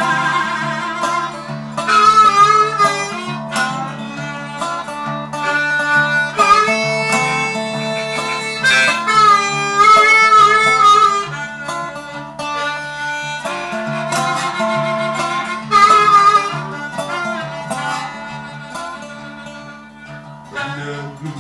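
Blues harmonica playing a solo of held notes that waver and bend, over lap slide resonator guitar.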